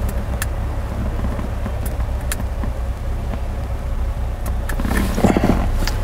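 A few sharp clicks as the Land Rover LR2's start button is pressed, over a steady low rumble. The engine does not crank: the car has a no-start, no-crank fault that the technician traces to a high-speed CAN bus pulled close to zero volts.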